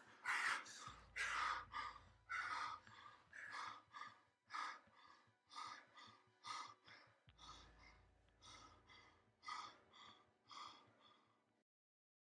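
A man's ragged, gasping sobs while crying in distress, about one breath a second, growing fainter and stopping near the end.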